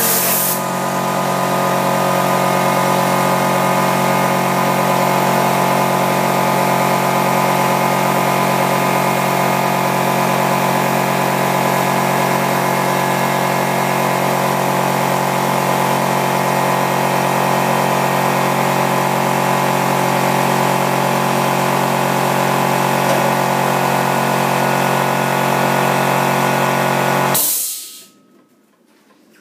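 Air compressor feeding an air-powered cleaning gun, its motor running steadily, cutting out abruptly near the end. A short blast of air hissing from the gun at the very start.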